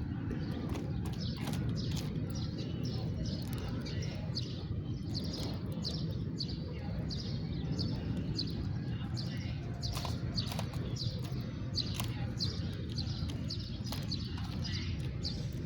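House sparrows chirping steadily: a run of short, falling chirps repeating several times a second, over a steady low background rumble.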